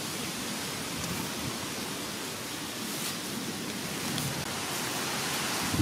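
Steady, even outdoor hiss with low rustling of grass and leaves, as someone walks through tall vegetation.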